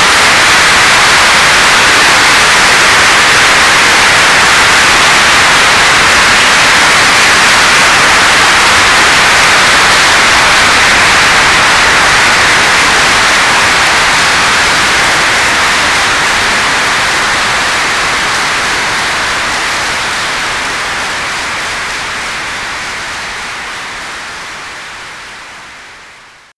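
Audience applauding, a dense, steady clapping that fades out gradually over the last dozen seconds.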